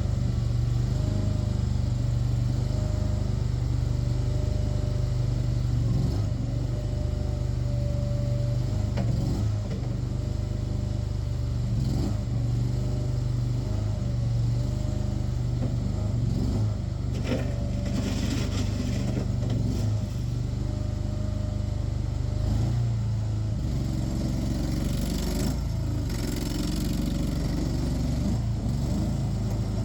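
Diggit SCL850 mini tracked skid steer loader's engine running steadily as the machine works, its pitch rising and falling a little, with a few short clanks.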